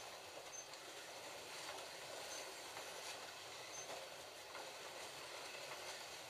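Slot.it GT40 slot cars running on a multi-lane track: a faint, steady whir of small electric motors with light clicking from the cars on the rails. A few short high beeps come in between.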